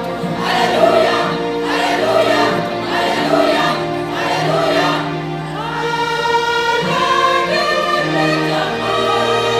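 A choir singing in several parts, holding long sustained chords.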